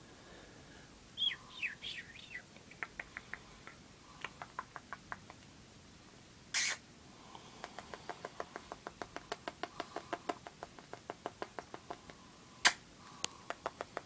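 Rapid kissing smacks, about three to four a second, traded between a person and a pet nanday conure, with a few short squeaky chirps near the start. Two short, loud, harsh bursts break in, one in the middle and one near the end.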